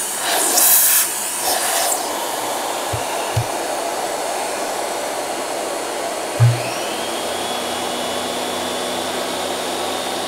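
Miele Complete C3 Brilliant canister vacuum running steadily, with a loud air rush in the first couple of seconds as the hose and wand are handled. Two light knocks follow, then a thump about six and a half seconds in as the wand is pushed into the electric powerhead, after which the powerhead's brush roll motor starts, adding a steady hum and high whine.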